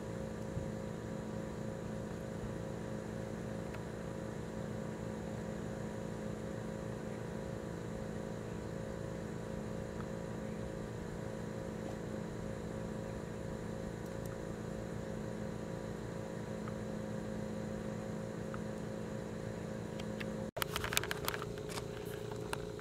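A steady mechanical hum with several fixed tones. About twenty seconds in it drops out for an instant, and a few sharp clicks and knocks follow.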